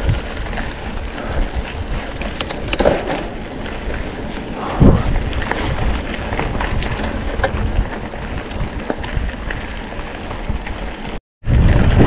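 Mountain bike rolling over a dirt and gravel track: tyre crunch and the rattle of the bike, with short knocks over bumps and one hard thump about five seconds in. Near the end the sound drops out briefly, then wind buffets the microphone.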